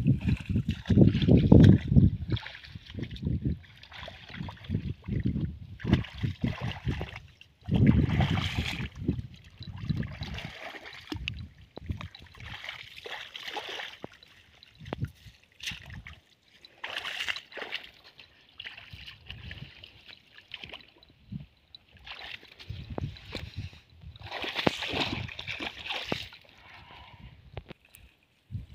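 Shallow muddy water sloshing and splashing irregularly as a person wades through it and pulls a cast net, with the heaviest splashing in the first couple of seconds and again about eight seconds in.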